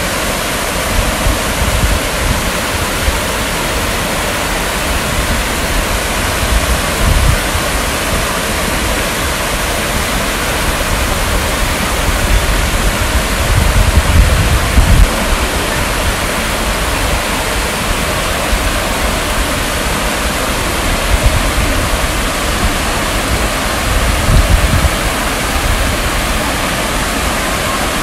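Water from a tiered rock waterfall splashing down the stone steps into a pond, a steady, dense rush. A few low rumbles come through about halfway and again near the end.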